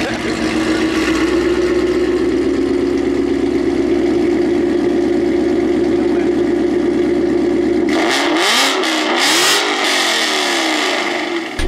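Ford Mustang GT's 5.0-litre V8 through an aftermarket exhaust, running steadily, then revved up and down a few times near the end.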